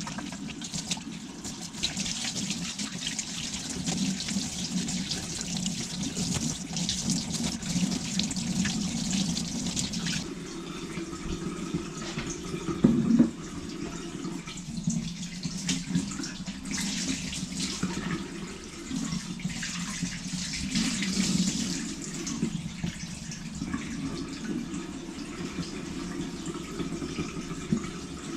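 Kitchen tap running into the sink in two long spells, with a single knock about 13 seconds in.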